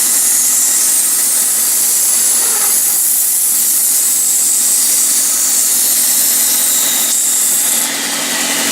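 Electric power sander running as a wooden toy car is sanded on it: a steady high hiss of abrasive on wood over the motor's hum, easing slightly near the end.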